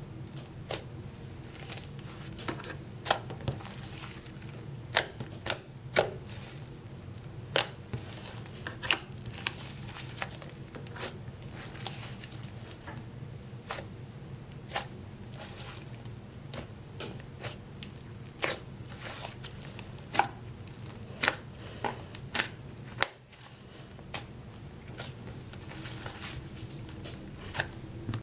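Daiso-clay butter slime being handled, with sharp clicks and pops at irregular intervals, roughly one a second, over a steady low hum.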